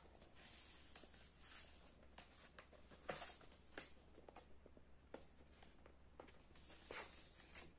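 Faint handling noise of unboxing: packaging rustling and light clicks as accessories are handled. There are a few louder swishes, the loudest about three seconds in and another near the end.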